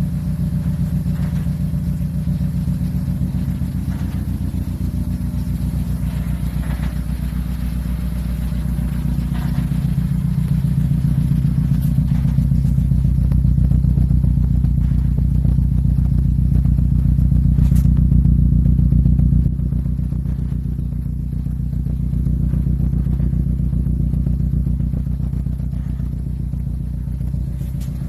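Ford Focus ST's turbocharged 2.0-litre EcoBoost four-cylinder idling steadily, heard at its twin centre exhaust tips. The engine has low compression in cylinder 1 from a damaged ring land.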